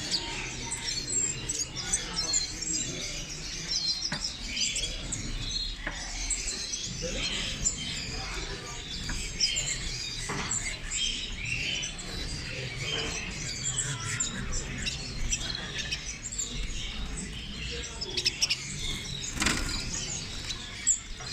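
Many small birds chirping and twittering at once, with a low murmur of voices underneath.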